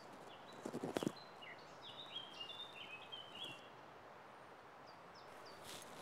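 Small birds singing in short high whistled notes and quick downward slides over a steady rush of river water. About a second in there is a brief cluster of knocks and scrapes from someone climbing in the tree.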